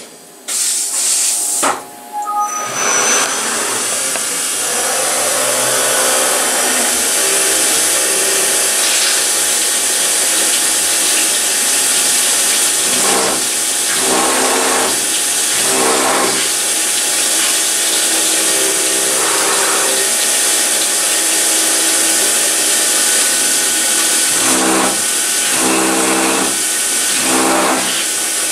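CNC milling machine finishing an automatic tool change with a few short clunks in the first couple of seconds, then the spindle running under steady flood-coolant spray hiss. The cutter bores holes in the part, and the cutting noise swells in several short spells in the second half.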